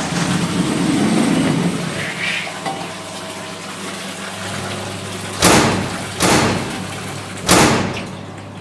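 Foley sound effects: a rushing, water-like noise, then three loud sudden noisy hits about a second apart in the second half.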